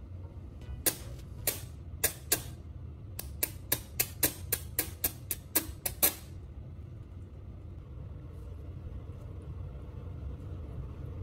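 Sharp crackling snaps of sparks as a homemade battery-powered welder's graphite tip touches a small stainless steel piece: about fourteen irregular snaps over some five seconds, then they stop.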